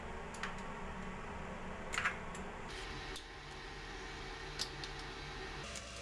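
A few light clicks and ticks, the loudest about two seconds in, from the cartridge of a push-button concealed flush valve being turned and worked loose in its housing by hand, over a steady low hum.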